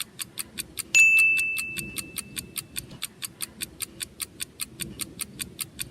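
A steady, rapid ticking, about five ticks a second, like a clock or timer sound effect. About a second in, a single bright ding sounds over it and rings on, fading over a second or two.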